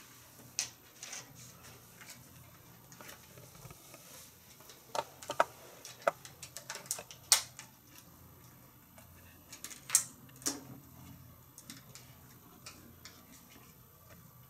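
Scattered clicks and knocks from an underwater camera rig being taken apart by hand, its light, grips and housing set down one by one on a table. The two sharpest knocks come about seven and ten seconds in.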